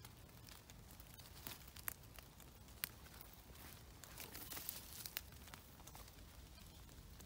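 Faint rustling of wet forest undergrowth and leaf litter as someone moves through it, with a handful of scattered sharp ticks and a slightly louder rustle about four to five seconds in.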